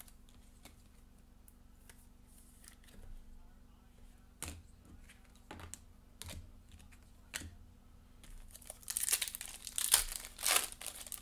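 A few light clicks and taps of cards being handled, then, about nine seconds in, the foil wrapper of a Panini Prizm Draft Picks football card pack is torn open and crinkled.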